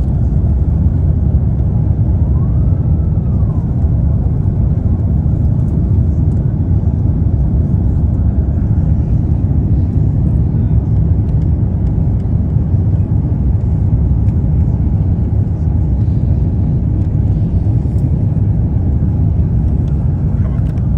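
Steady low rumble of an Airbus A350-900 cabin in the climb after takeoff: its Rolls-Royce Trent XWB engines and the airflow over the fuselage, heard from a window seat.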